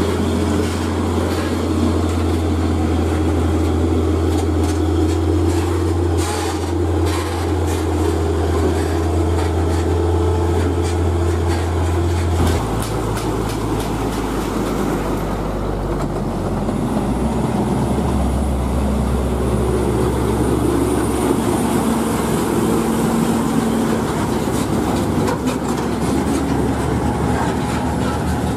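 Heavy diesel trucks pulling up a grade close by. First a tractor unit with a flatbed semi-trailer passes, its engine droning steadily while the trailer clatters and rattles. About halfway through this gives way to a DAF CF 85 410 tractor unit, whose engine note shifts as it comes up and passes.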